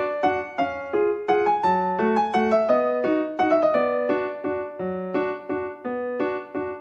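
Background piano music: a light melody of evenly paced single notes over a soft accompaniment.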